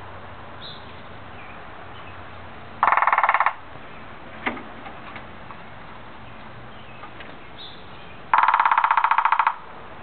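Downy woodpecker drumming on a dead, hollow timber bamboo culm: two rapid rolls of taps with a ringing tone, the first under a second long about three seconds in, the second longer, over a second, near the end. A single knock falls between them.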